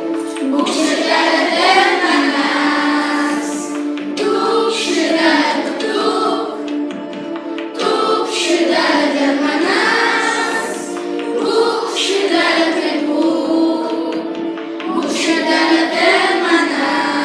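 A class of schoolchildren singing a song in Lithuanian together as a choir.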